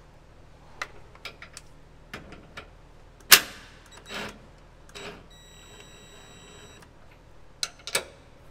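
Tools clicking and knocking against a traction bar's steel mounting bracket, with one sharp metallic knock about three seconds in. A cordless ratchet's motor then whines steadily for about a second and a half as it runs the mounting bolt, followed by a couple of clicks from a spanner going onto the bolt.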